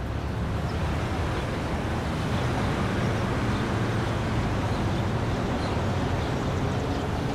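City street traffic noise: a steady low rumble of passing vehicles under a constant wash of street noise.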